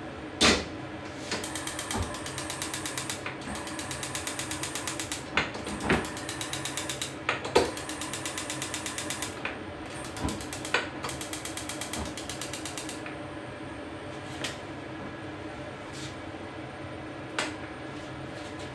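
Rapid, evenly spaced mechanical clicking like a ratchet, in several runs of a second or more each, with a few louder knocks among them; the clicking stops about two-thirds of the way through, leaving a few single knocks.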